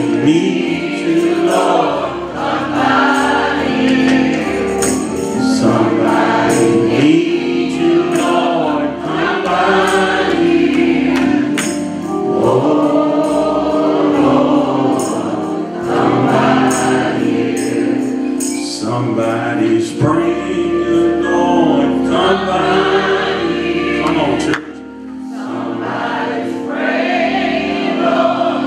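Church choir singing a gospel song, with sharp percussion strokes scattered through it; the singing dips briefly about 25 seconds in.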